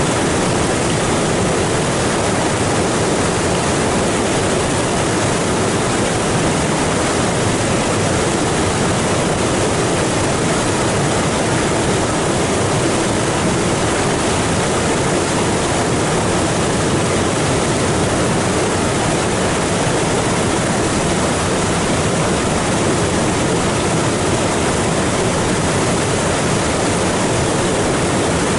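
Creek in flood pouring over limestone ledges and a low waterfall, loud and steady rushing water with no letup.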